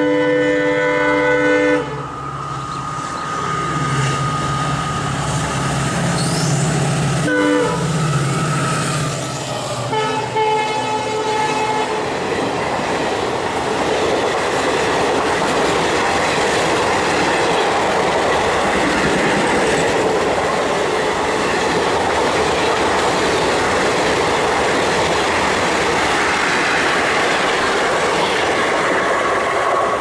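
Indian Railways WDP4 diesel locomotive, an EMD design with a 16-cylinder two-stroke engine, passing at speed. Its loud horn sounds for the first couple of seconds and again in short blasts about seven and ten seconds in, while the engine's low drone rises as it goes by. The coaches then rush past with steady wheel clatter over the rail joints.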